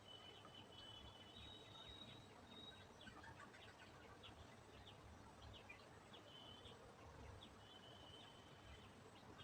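Near silence: faint room tone, with a few faint, high, short held chirps in the background.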